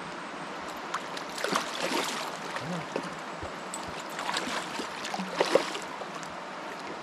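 Steady rush of a river, with two bouts of splashing from a hooked coho salmon thrashing at the surface by the bank: one about a second and a half in, another from about four to five and a half seconds.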